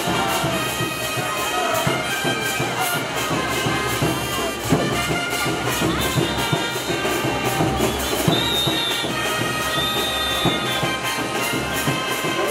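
Tinku dance music: wind instruments playing sustained melody lines over a steady, driving beat.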